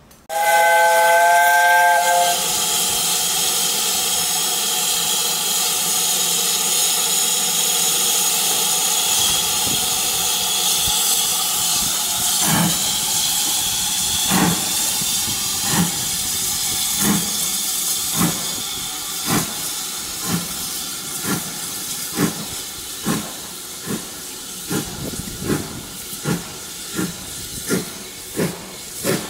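Steam locomotive whistle sounding once for about two seconds, several tones together, followed by a steady hiss of steam. From about twelve seconds in, the exhaust chuffs start, slow at first and coming steadily faster as the train gathers speed.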